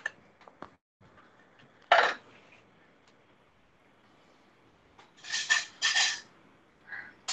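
Kitchen dishes and utensils clinking on a countertop: a few faint ticks at the start, one clatter about two seconds in, and two louder clatters just after five seconds.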